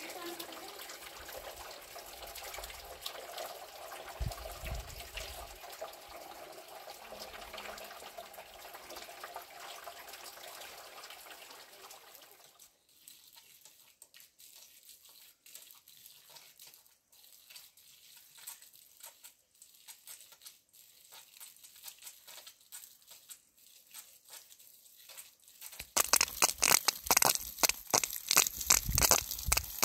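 Water running steadily, stopping about twelve seconds in; then faint scattered clicks, and near the end loud, rapid crackling and crunching.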